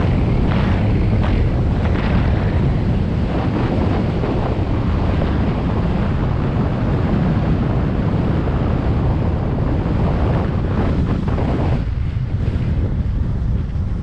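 Wind buffeting a GoPro microphone at about 20 mph on skis, a loud steady rumble, with the repeated hiss and scrape of skis on packed, groomed snow through the turns. The scraping thins out near the end.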